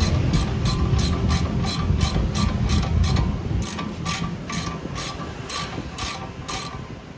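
Ratchet wrench clicking steadily, about three clicks a second, as a bolt is turned during removal of the hub bearing assembly, over a low rumble that fades about halfway through.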